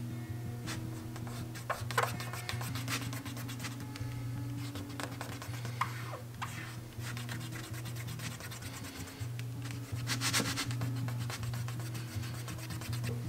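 Fingertips rubbing and pressing masking tape down onto a clear plastic golf disc: a run of scratchy swishes, loudest about two seconds in and again about ten seconds in, over quiet background music.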